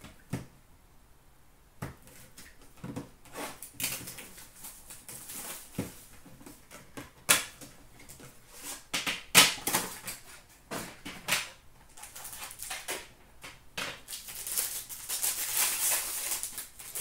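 Hands opening a cardboard trading-card box and drawing out the wrapped pack inside: scattered clicks, scrapes and rustles of cardboard, then about two seconds of steady crinkling near the end as the pack's wrapper is torn open.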